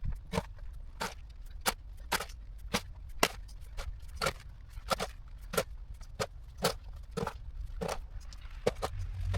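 Footsteps crunching in snow at a steady walking pace, a little under two steps a second.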